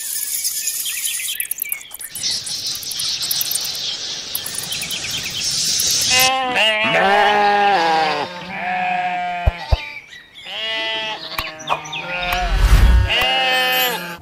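Sheep bleating: three long, wavering bleats in the second half, the last with a brief low rumble under it. Before them comes a high hiss with chirping.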